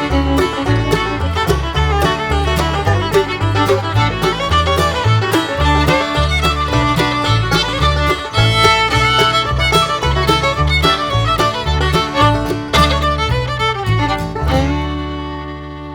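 Lively instrumental background music with a quick, steady beat, closing on a long held chord that fades near the end.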